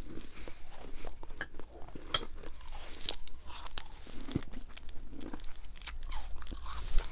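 A person biting and chewing a mouthful of freezer frost and ice chunks, with many sharp, irregular crunches.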